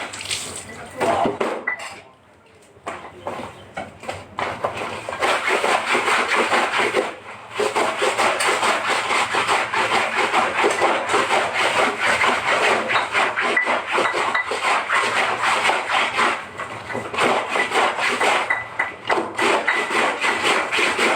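Laundry being scrubbed by hand: a fast, continuous rubbing and scratching of cloth, with a short pause about two seconds in and brief breaks later on.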